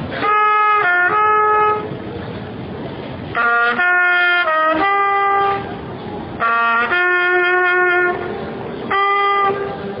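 Trumpet playing a slow melody in four short phrases of held notes, with a steady background hiss in the gaps between phrases.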